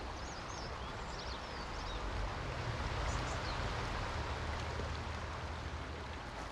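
A small brook flowing, a steady rush of water, with a few short high bird chirps in the first second and again around three seconds in.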